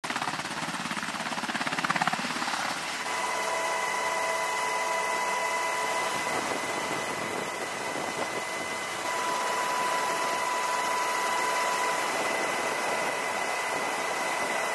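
Helicopter running: steady rotor and turbine wash, with stronger pulsing from the blades about two seconds in, then a steady rush with faint high whining tones.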